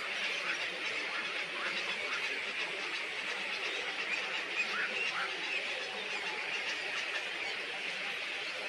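A flock of small birds chattering and chirping all at once, a dense steady din of overlapping short calls.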